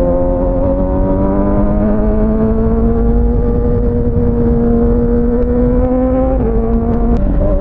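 Kawasaki ZX-6R inline-four sport bike engine under way, its pitch slowly climbing as it pulls, with a short dip and change in pitch about six and a half seconds in. A steady low rumble of wind runs underneath.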